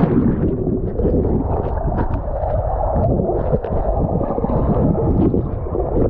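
Water and air bubbles churning, heard through an action camera held underwater, so the sound is muffled and dull, with light ticks and pops above the steady churn.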